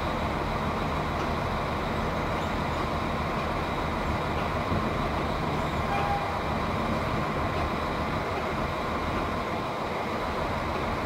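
Diesel engine of a PESA SA139 railcar running steadily, a constant low drone with no break or change in level.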